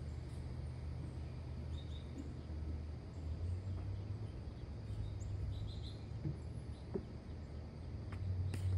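Outdoor ambience: a steady low rumble, with a few short, faint bird chirps.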